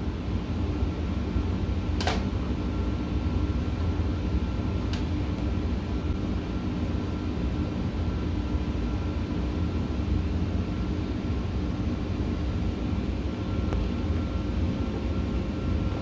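Steady low machine hum, like a fan or air-conditioning unit running, with two light clicks about two and five seconds in.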